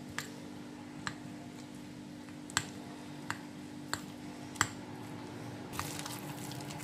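Hand mixing chicken pakora batter in a glass bowl: a soft wet squishing that gets denser near the end, with about seven sharp ticks of fingers knocking against the glass. A steady low hum runs underneath.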